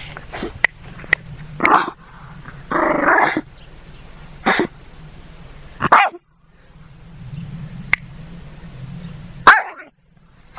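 Border terrier barking in separate single barks, about five over the stretch, with a longer, growly bark about three seconds in. The sound is thin and low-grade, as picked up by an old mobile phone.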